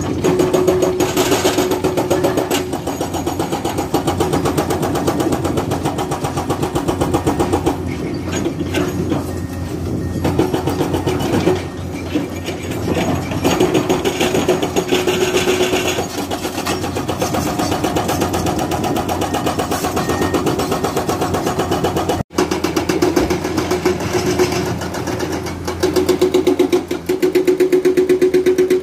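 Diesel engine of a hydraulic excavator running steadily at working revs, with a fast, even clatter.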